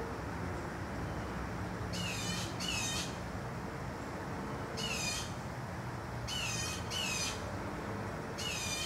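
Blue jays giving harsh, squawking alarm calls: four short calls, two in quick succession about two seconds in, one near the middle and one near the end. The calls are a warning raised at a rat snake.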